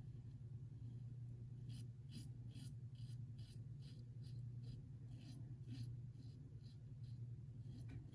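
Double-edge safety razor scraping stubble through shaving lather: a run of short, faint scratchy strokes, two or three a second, starting about two seconds in and stopping near seven seconds, over a steady low hum.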